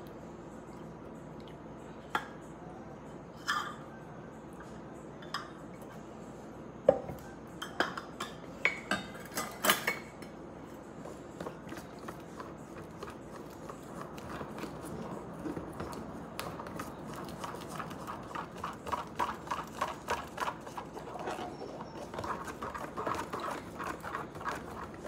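A metal spoon stirring pancake batter in a plastic container, knocking against its sides and bottom. Scattered single clinks and taps for the first ten seconds, then a quick, continuous tapping from about halfway through as the batter is beaten.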